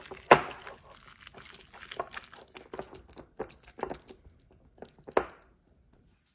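Hands squishing and massaging thinly sliced beef brisket in a soy-based marinade in a glass bowl: irregular wet squelches, with two louder sharp slaps, one about a third of a second in and one near the end.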